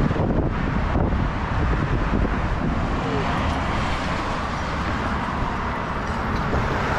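Wind buffeting the microphone over the steady noise of road traffic passing by.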